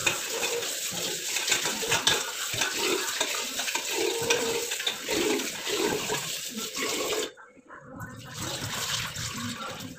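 Tap water running and splashing into a pot of rice set out for cooking. The flow stops for a moment a little past seven seconds in, then runs again.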